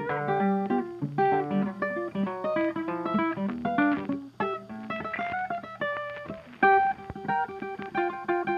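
Background music: acoustic guitar picking quick runs of notes.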